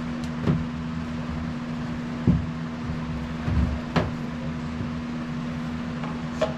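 A steady machine hum with three short knocks, about half a second, two seconds and four seconds in, the middle one the loudest.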